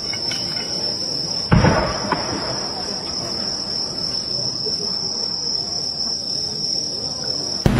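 A firework shell fires from its mortar with a loud thump about a second and a half in. Near the end the shell bursts with a sharp crack that opens into a loud low boom. Crickets trill steadily and high-pitched behind it.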